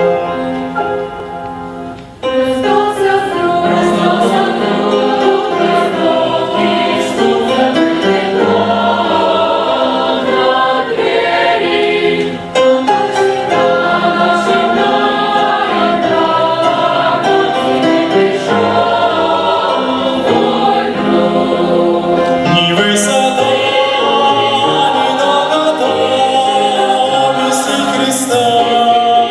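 A choir singing a Christian song with instrumental accompaniment. The full sound comes in about two seconds in, after a short quiet dip.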